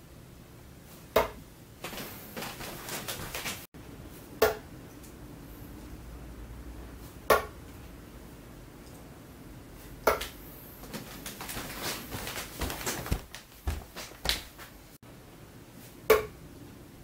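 Soft-tip darts fitted with Cosmo Fit Point Plus tips striking a Unicorn Eclipse Pro bristle dartboard, one sharp thud per throw, five hits a few seconds apart. Between some of the throws there is light scuffing and clicking.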